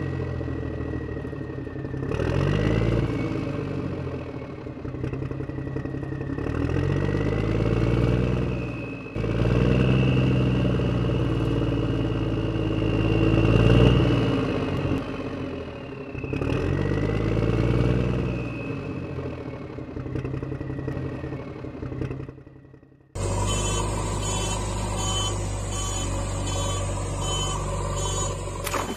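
Heavy vehicle engine sound revving up and down in repeated passes, the kind of engine sound laid over toy backhoe loader footage. Near the end it switches abruptly to a steadier running sound with a fast, regular rattle.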